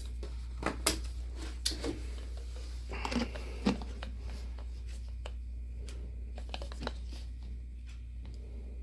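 Handling noises of small objects on a work surface: a scattering of light clicks, taps and knocks, busiest in the first four seconds and sparse after, over a steady low hum.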